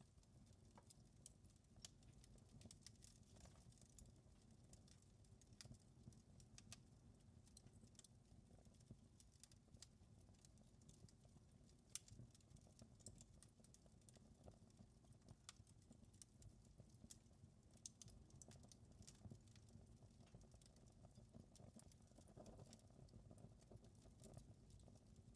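Wood fire crackling faintly in a fireplace: irregular small pops and snaps over a low steady rumble, with one sharper pop about halfway through.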